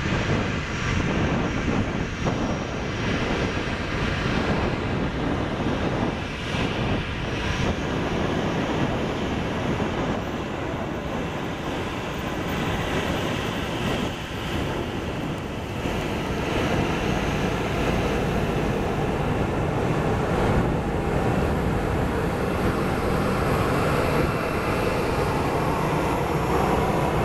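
Boeing 737-800's CFM56-7B turbofan engines running at taxi power: a steady rushing jet noise with a faint high whine. It grows louder in the second half as the airliner passes and turns away.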